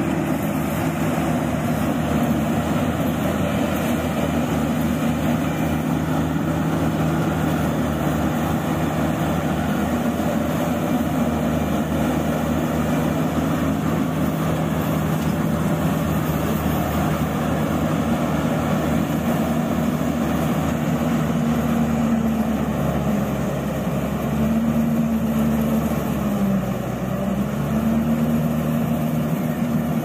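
Yanmar rice combine harvester running steadily as it cuts rice, its engine and threshing machinery making a continuous mechanical drone. Its pitch dips briefly near the end and then comes back.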